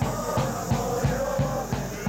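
Supporters' cheering from the stands: a drum beaten steadily about three times a second under a group chanting or singing.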